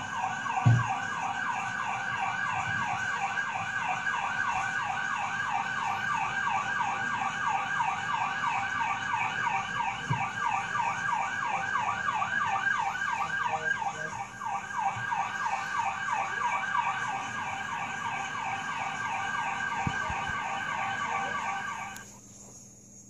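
Emergency vehicle siren in fast yelp mode, a rapid warble repeating about three to four times a second, with a brief thump about a second in; the siren cuts off suddenly near the end.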